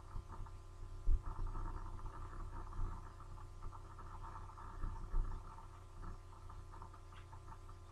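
Low steady hum and background noise on the recording microphone, with a few soft low thumps, the strongest about a second in.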